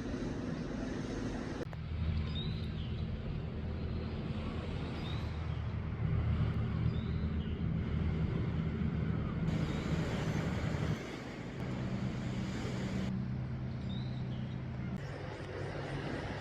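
Low, steady engine hum of a motor vehicle, heard across several short clips that change abruptly, with a few faint short chirps above it.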